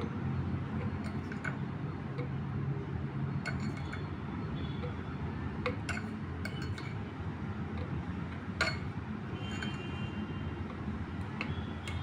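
A spoon and glassware clinking and tapping now and then, a dozen or so short clinks with a brief ring after some of them, as a thick honey-and-lemon syrup is scraped and poured into a small bottle. A steady low hum runs underneath.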